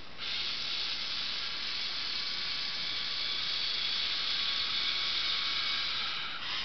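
Lego Mindstorms NXT servo motors and their plastic gears whirring steadily as the monkey robot drives itself along a bar. The whir starts suddenly just after the start and stops shortly before the end.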